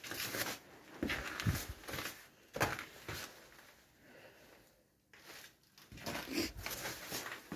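Irregular scuffs, rustles and knocks of a person moving about and handling things while searching for a tool case, in short bursts with quieter gaps.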